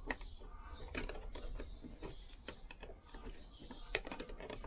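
Irregular light metallic clicks and taps as gloved hands handle the small metal parts of a Nissin hydraulic brake master cylinder, fitting its banjo bolt through the body.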